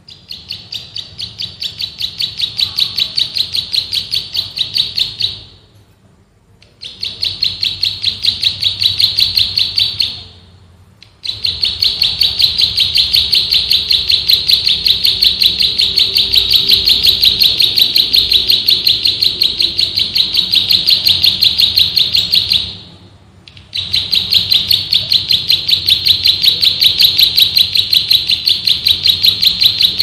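Plain prinia (prenjak sawah) singing a loud, high, rapid drilling trill of tightly repeated notes, pulsing about four times a second, in four long bouts with short breaks between them.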